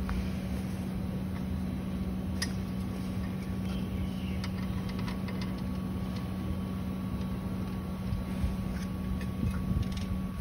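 Steady low machine hum, with faint clicks and knocks from steel swing-chair frame tubes being fitted together; one sharper click about two seconds in.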